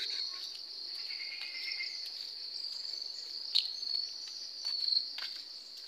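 Insects trilling steadily on one high, unbroken note, with a few faint clicks.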